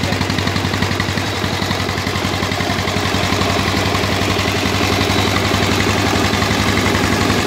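A homemade single-cylinder stationary diesel engine running steadily, its firing strokes making a rapid, even chugging.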